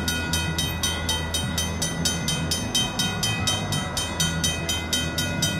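Griswold mechanical crossing bells on the cantilever signals ringing rapidly and evenly, about five strikes a second, over a low steady rumble: the crossing is active and its gates are lowering for an approaching train.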